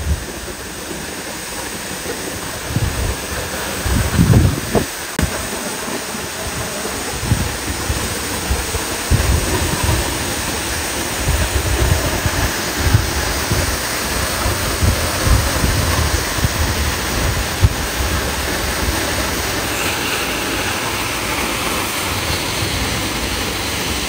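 Steady rushing roar of Henrhyd Falls, a tall waterfall, heard close by, with irregular low rumbles and thumps underneath.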